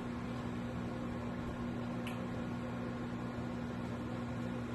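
Microwave oven running with a steady electrical hum, with one faint click about two seconds in.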